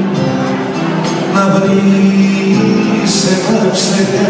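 Live Cretan folk music from a small string band, with a singing voice holding long notes over the playing.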